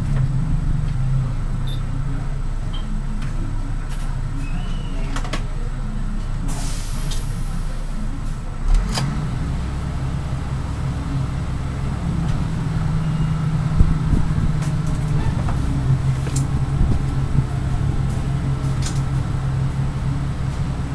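Hot air rework station blowing over a phone's logic board, a steady airflow hum that drops lower about nine seconds in: preheating the fluxed CPU pads before the chip is soldered on.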